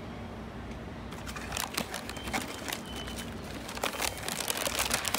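Shin-Keisei 8800-series electric train pulling out of the station: a steady low hum, with rattling and clicking from the wheels and running gear that grows denser from about a second in, and a couple of faint brief squeals.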